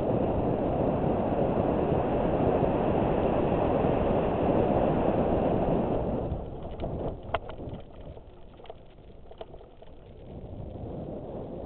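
Wind rushing over a GoPro helmet camera and bicycle tyres rolling on a dirt fire road during a mountain-bike descent. The rush drops sharply about halfway through, with a few sharp ticks over the next few seconds, then builds again near the end.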